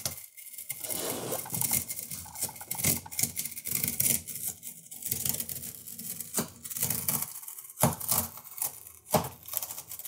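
Old adhesive seam tape being peeled slowly down off a vinyl-covered wall panel seam: an irregular crackling tear as the adhesive lets go, with the rustle of the loose tape strip being handled.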